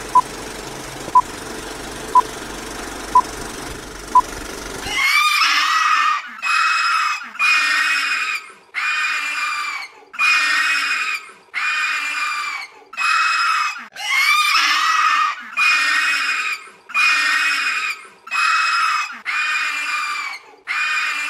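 Film countdown leader: steady hiss with a short, high beep about once a second, five beeps. Then, from about five seconds in, a run of loud, shrill shrieks, each about a second long, repeating one after another with short gaps.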